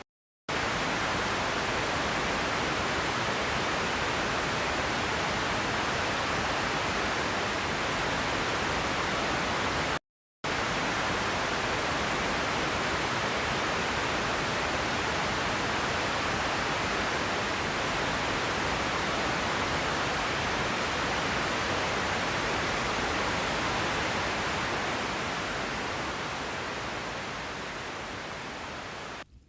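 Steady rushing water, an even roar of noise with two brief cut-outs to silence, easing slightly near the end.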